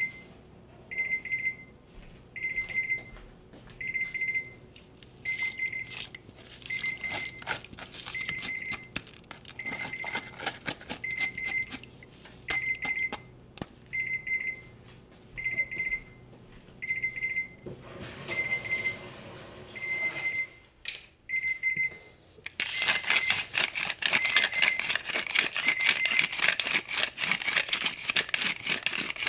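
An electronic alarm beeping steadily, one short high beep roughly every second, with light handling noise between the beeps. The beeping stops about three quarters of the way through, and a louder, dense run of small clicks and rattles takes over.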